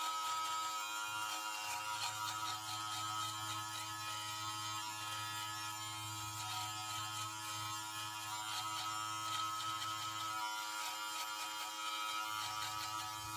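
Brio Beardscape V2 cordless beard trimmer, fitted with a 2 mm guard, running with a steady electric buzz as it is drawn over the cheek and chin to cut beard hair down to short stubble.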